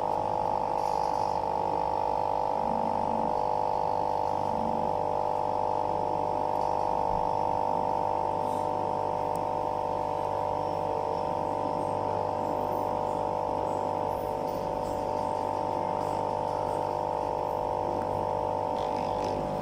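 A steady, unchanging hum made of several close tones, with a low mains-like drone beneath it.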